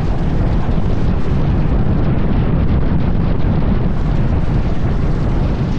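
Wooden roller coaster train racing along its track at speed: a loud, steady rumbling rush of wheels on track, mixed with heavy wind buffeting the microphone.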